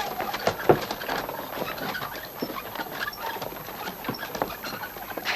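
An irregular patter of light knocks and clicks, with a few faint high chirps around the middle.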